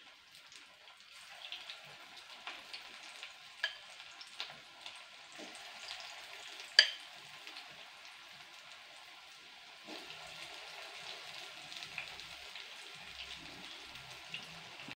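Moong dal (green gram) batter fritters deep-frying in hot oil in a wok: a steady fine sizzle with scattered pops and clicks, the sharpest about seven seconds in.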